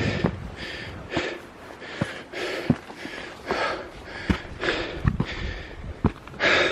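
A hiker breathing hard and fast during a steep uphill climb, roughly one loud breath a second. Short sharp knocks fall in between the breaths.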